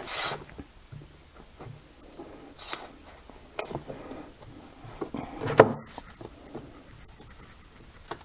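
Soft silicone rubber shell of a nightlight being flexed and pulled off its glued inner base by hand: scattered rubbing and small clicks as the glue joint gives way. There is a short rasp at the start and a sharper click about five and a half seconds in.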